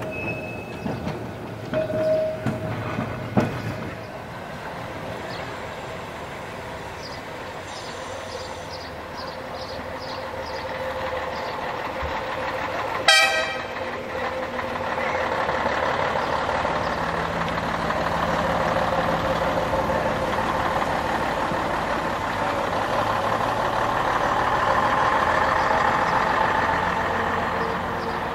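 Heritage tram running on the rails, growing louder through the second half and easing off near the end, with a single short, sharp sound about halfway through.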